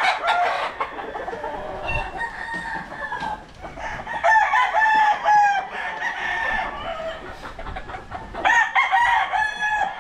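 Several gamefowl roosters crowing one after another, some crows overlapping; the loudest come about four seconds in and again near the end.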